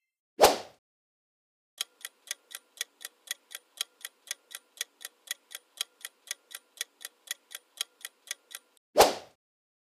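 Quiz countdown-timer sound effect: a clock-like ticking, about four ticks a second for roughly seven seconds while the guessing time runs out. A short swoosh comes just before the ticking starts and another right after it stops.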